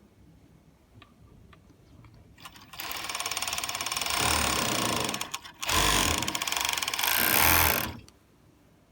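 Four-thread overlock sewing machine (serger) stitching two tricot-fabric braids together: it starts about three seconds in and runs with a fast, fine ticking for about three seconds, pauses briefly, then runs again, louder, for about two seconds before stopping.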